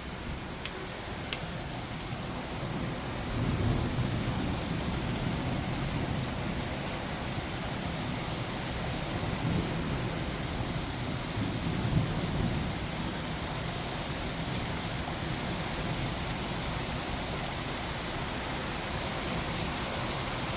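Heavy thunderstorm rain pouring steadily, with low rolling thunder swelling about three seconds in and again around ten to twelve seconds in.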